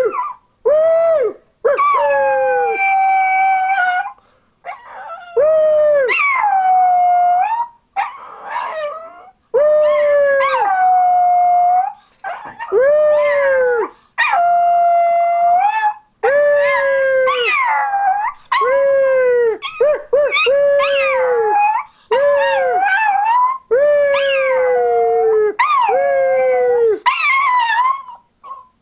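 Small Chihuahua–dachshund mix dog howling over and over, a long run of pitched howls each a second or two long with short gaps, many sliding down in pitch at their ends.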